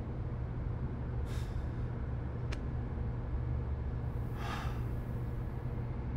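A steady low rumble, with a short breathy whoosh about a second in, a single sharp tick a little later, and a louder breathy swell at about four and a half seconds.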